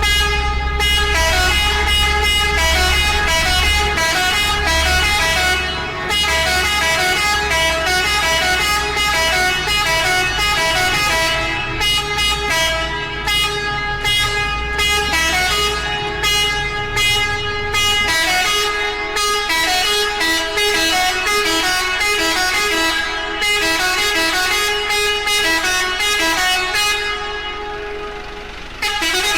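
Multi-tone musical air horn playing a fast melody, its notes stepping up and down in quick succession with short breaks. A low rumble runs underneath and stops about two-thirds of the way through.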